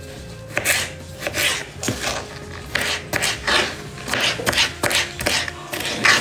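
Kitchen knife slicing cucumber: a quick, irregular run of short crisp cuts, about two to three a second, each stroke scraping through the cucumber onto the board.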